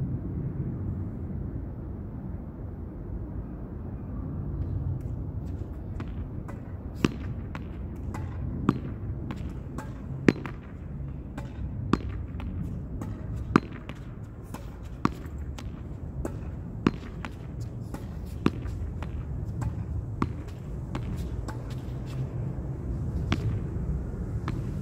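A ball being hit against a wall again and again. The sharp strikes begin about five seconds in and come about every second and a half, with fainter knocks between them, and they stop shortly before the end. A steady low rumble runs underneath.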